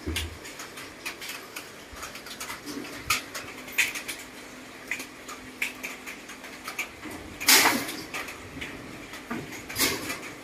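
Monkeys clambering about a wooden and wire-mesh cage: scattered knocks, taps and rattles, with two louder harsh rattling bursts, one about seven and a half seconds in and one near the end.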